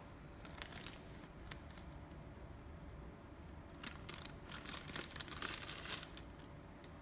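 Thin clear plastic wrapping crinkling and rustling in short bursts as it is peeled off a figure. The bursts are busiest between about four and six seconds in.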